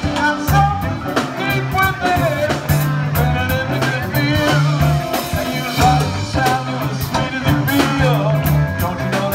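A live soul band performing: a man singing lead over electric guitar, bass guitar, drum kit and keyboards.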